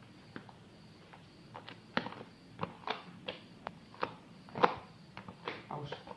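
A series of irregular light knocks and taps, about a dozen short hits spaced unevenly.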